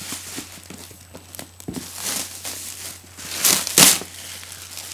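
Clear plastic wrap being torn and pulled off a cardboard box, crinkling and crackling, with two loud tearing rips about three and a half seconds in.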